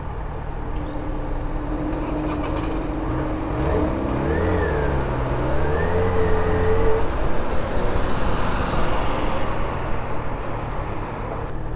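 Motorcycle engine running on the move, its pitch dipping and then rising again between about three and seven seconds in, over a steady rushing noise.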